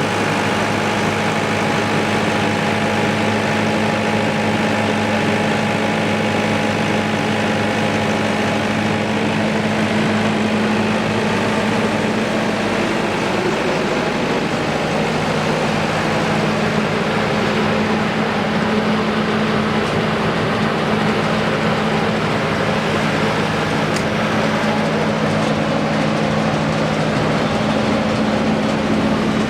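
Cummins 68 kVA diesel generator set with a four-cylinder diesel engine running steadily. Its hum changes tone about halfway through.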